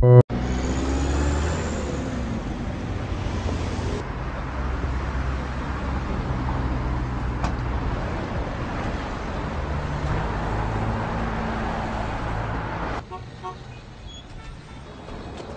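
Dance music cuts off abruptly right at the start, leaving a steady outdoor background noise with a low rumble and no voices. The noise drops noticeably quieter about thirteen seconds in.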